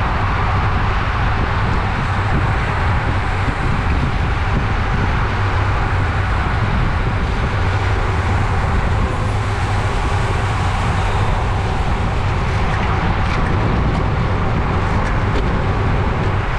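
Steady rush of wind and road noise on a bicycle-mounted camera's microphone, riding at race speed in a pack.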